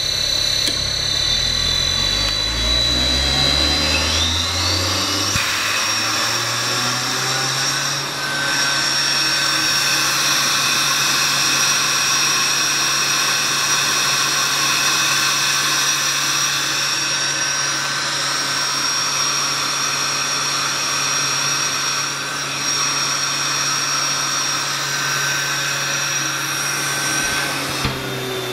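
Sullivan Palatek 15 hp rotary screw air compressor starting up on its inverter drive: the motor hum rises in pitch over the first five or six seconds as it slowly spins up, then the compressor runs steady at full speed with a high whine.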